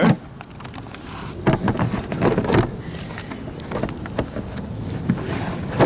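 Clicking, knocking and scraping handling noises as a frozen fish treat in its container is moved and set down, busiest between about one and a half and two and a half seconds in.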